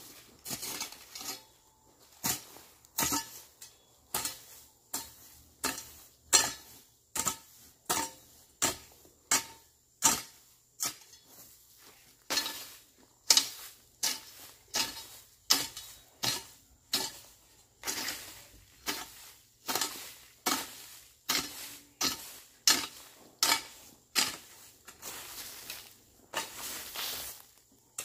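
Hoe chopping into weedy ground, a sharp strike with a short scrape about one and a half times a second. Some strokes drag into longer scrapes through soil and grass.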